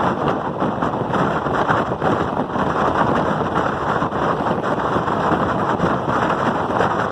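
Wind buffeting the microphone at the open window of a moving train, over the train's steady running noise.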